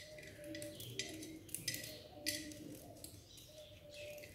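Small kitchen knife slicing almonds over a stainless-steel plate: about five sharp, irregular clicks as the blade cuts through the nuts and the slivers drop onto the plate.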